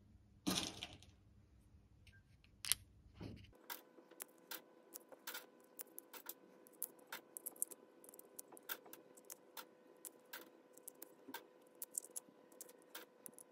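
Faint small clicks and taps, a few a second, as lead pellets are dropped into the chambers of a clear plastic rotary air-rifle magazine and it is worked round by hand, with a couple of louder handling knocks in the first seconds.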